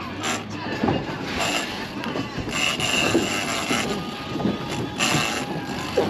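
Wind and sea noise at a boat's bow, with the mechanical whirr of a heavy fishing reel worked under load against a hooked shark, in several louder surges.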